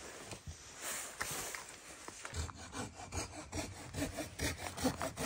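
Hand saw cutting through firewood: rhythmic back-and-forth strokes, about three a second, that become steady and louder about two seconds in.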